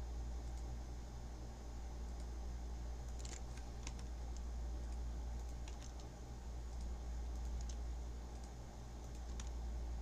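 Scattered computer keyboard and mouse clicks, faint and irregular, over a steady low electrical hum.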